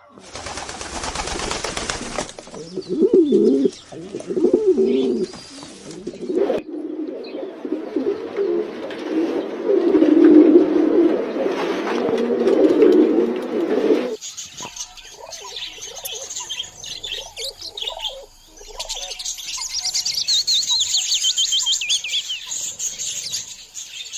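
Cooing birds in a repeated low, wavering call for the first half. After a cut about 14 seconds in, budgerigars chirp and warble, with fast high trills near the end.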